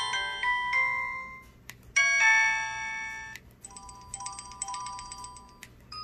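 LG CU400 phone playing its built-in message alert tones one after another: a short electronic chime melody fades out, then a louder multi-note chime starts suddenly about two seconds in and stops abruptly, followed by a quick run of short bright beeping notes.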